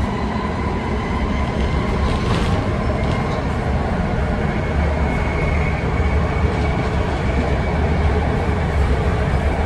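Inside a BART Fleet of the Future rapid-transit car running at speed: a steady, loud low rumble of wheels on rail, with a faint high whine over it.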